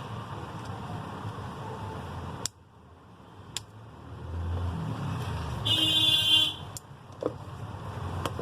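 Background traffic rumble with a vehicle horn honking once for just under a second, near the middle, the loudest sound. A few light clicks are scattered through it.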